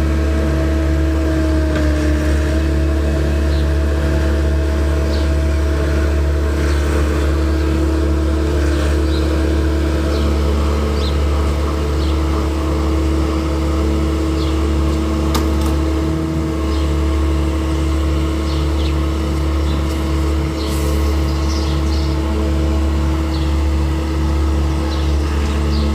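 Engine of a farm machine running steadily at a constant speed, with a strong low hum and a steady drone, heard close up, with light scattered ticks and rattles.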